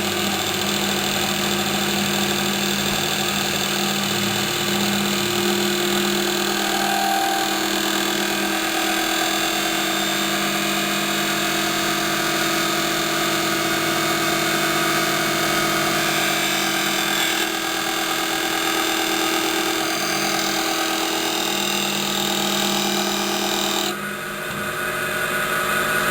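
Hapfo copy lathe running while its knives cut an oak table leg: a steady machine hum under a dense hiss of cutting. About 24 s in, part of the hum stops and the cutting hiss falls away.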